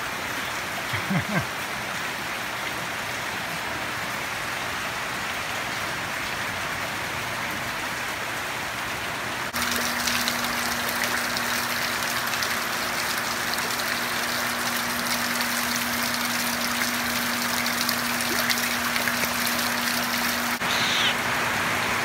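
Steady rain falling. About nine seconds in, it cuts to louder splashing water being poured by hand into a small pool, with a steady low hum underneath.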